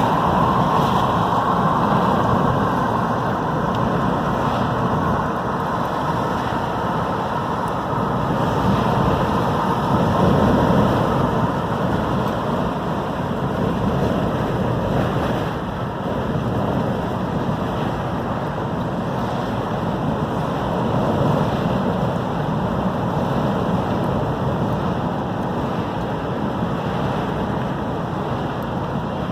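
Storm wind buffeting the microphone over breaking ocean surf: a steady rushing noise that swells and eases a little.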